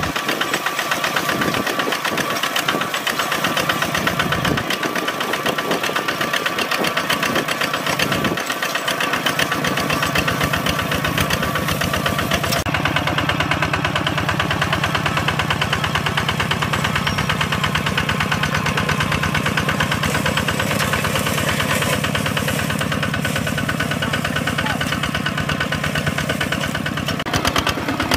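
Single-cylinder diesel engine of a Kubota walk-behind two-wheel tractor, chugging steadily under load while pulling a plough through dry soil. Its tone shifts about twelve seconds in.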